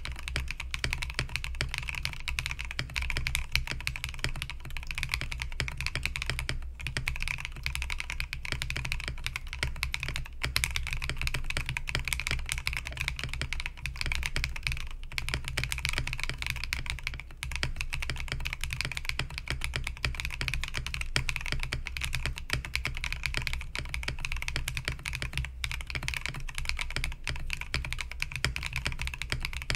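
Fast, continuous typing on a Bauer Lite mechanical keyboard in a clear plastic case, built without plate foam: a dense clatter of keystrokes broken by a few brief pauses.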